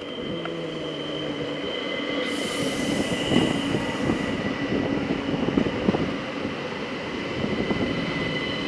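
Three-car ÖBB class 4023 Talent electric multiple unit arriving at a station and passing close by, with a steady high whine over the running noise of its wheels on the rails. A burst of hiss comes about two seconds in and lasts about two seconds, and the sound grows louder as the train draws near.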